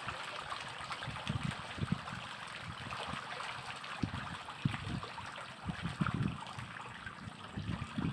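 Water splashing and trickling around a floating net fish cage as fish churn the surface taking feed, with irregular low knocks of water against the cage and its floats.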